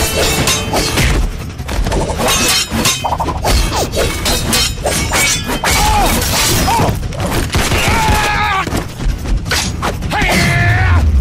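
Fight sound effects of blade combat: many sharp clashing, slashing and impact hits in quick succession, over a music score, with pitched whooshing glides near the end.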